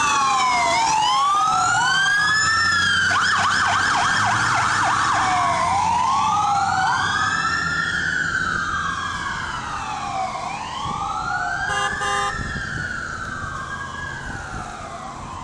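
Fire apparatus electronic sirens, two of them wailing up and down out of step, with a fast yelp a few seconds in. A brief horn note sounds about twelve seconds in, and the sirens grow fainter toward the end.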